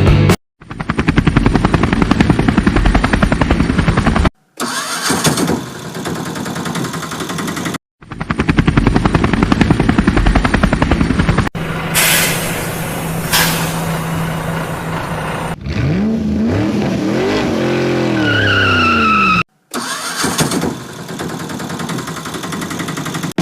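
A string of short engine sound clips cut together with brief silences between them. Engines run with a fast throb, then one steady hum, then a pitch that rises and falls like an engine revving up and down.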